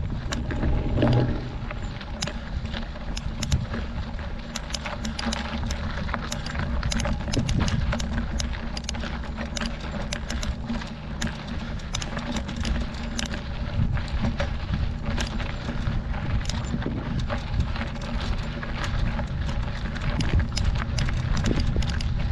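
Mountain bike riding over a rocky dirt road: many small clicks and rattles from the bike and loose stones over a steady low rumble.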